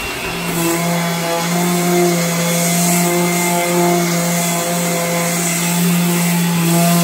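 Electric orbital sander with a vacuum dust-extraction hose running steadily with a constant hum, sanding the dark lacquer finish off a maple cabinet door down to the wood; the hiss of the pad on the finish grows about half a second in.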